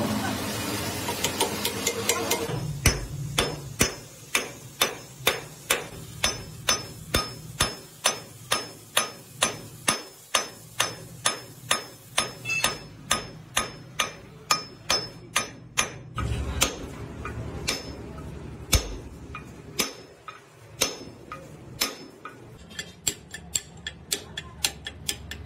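Hammer blows on steel parts of a truck axle: a long, even run of sharp metallic strikes about three a second, then slower, irregular taps near the end as a punch is driven into the axle yoke's bore.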